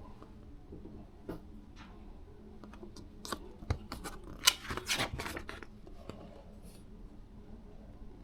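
A quick, irregular run of sharp clicks and light knocks, thickest from about three to five and a half seconds in, over a low steady room hum.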